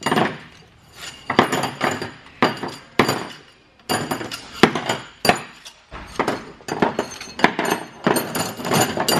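Long steel bolts of a Mazda 13B rotary engine being pulled from the end housing and laid down in a parts tray, clinking and knocking against the housing and each other in irregular sharp strikes, several a second.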